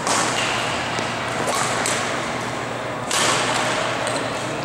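Badminton rackets striking a shuttlecock during a rally: a sharp hit at the start and another about three seconds in, echoing in a large gym over a steady background hiss.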